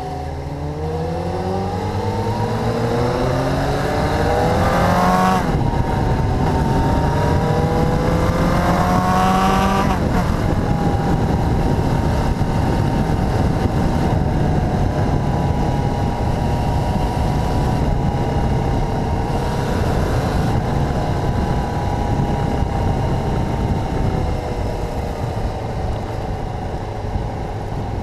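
Motorcycle engine accelerating hard through the gears, its pitch climbing and dropping sharply at two upshifts, about five and ten seconds in, then running at a steady cruising speed and easing off slightly near the end.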